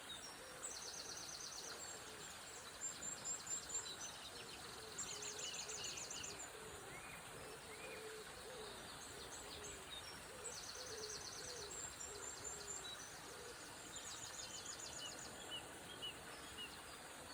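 Dawn chorus of songbirds: rapid high trills and chirps repeating throughout, over a steady rush of river water. A series of short, low hooting notes runs through the middle.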